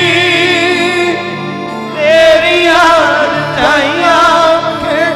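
Music: a Punjabi devotional song, a voice singing long wavering notes over steady held accompaniment notes. It softens briefly about a second in, then the singing comes back louder.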